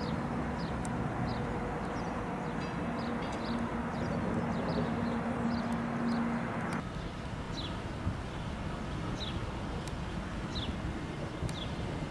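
A diesel locomotive engine running with a steady low hum, with short, descending bird calls repeating over it. About seven seconds in, the hum cuts off and a more even low rumble of rail traffic remains, the bird calls going on.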